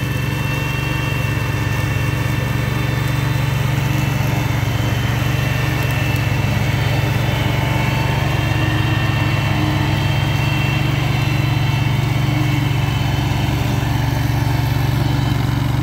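SPIDER ILD02 remote-controlled mower running at a steady engine speed as it cuts tall, overgrown grass.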